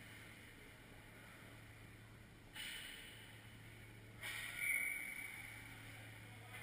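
Ice hockey rink ambience: a steady low hum, with two sudden bursts of noise from play on the ice, about two and a half and four seconds in, the second louder and fading over about a second.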